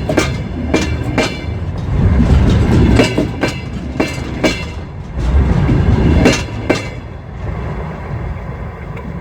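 Empty freight wagons rolling by, their wheels clattering loudly over rail joints in repeated groups of sharp knocks over a rumble. The sound drops to a weaker, steadier rumble after about seven seconds.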